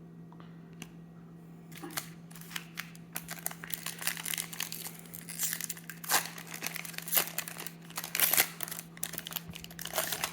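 Foil trading-card pack crinkling and being torn open, a dense run of irregular crackles that starts about two seconds in.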